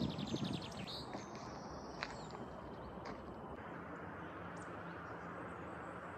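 Outdoor ambience: a steady rushing background with birds chirping, including a quick trill of chirps in the first second and a few single chirps later.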